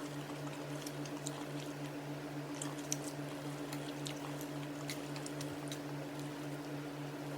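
Eating sounds of hot-pot food being chewed, with small scattered clicks, over a steady low hum that pulses evenly.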